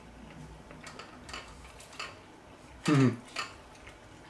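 Fork clicking lightly against a plate a few times while eating, with a short vocal sound from the eater, falling in pitch, about three seconds in.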